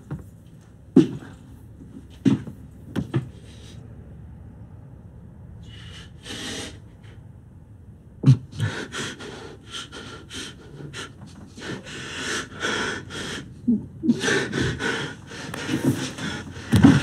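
A man's labored breathing during a drug overdose: a few sharp gasps in the first seconds, then fast, ragged panting and gasping that grows more frantic toward the end.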